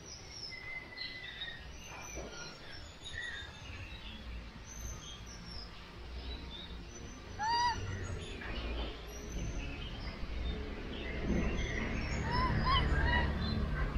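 Baby macaque's short high chirping squeaks, with a brief rising-and-falling coo call about halfway through and two more near the end.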